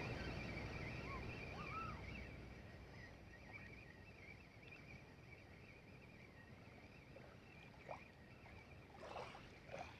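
Faint water lapping at the shoreline, fading over the first few seconds, with a few soft clicks near the end.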